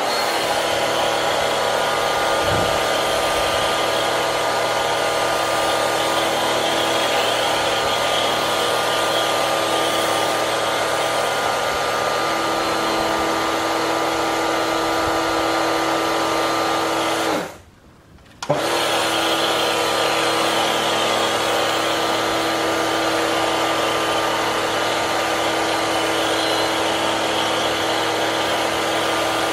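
Pressure washer running, its motor's steady whine under the hiss of ceramic foam spraying from a snow foam lance onto a car. It cuts out for about a second a little past halfway, then starts again.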